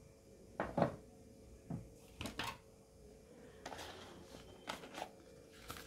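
Cardboard tablet packaging being handled: a few soft knocks and taps, the loudest pair just under a second in, a short rustle about two-thirds through and light clicks near the end.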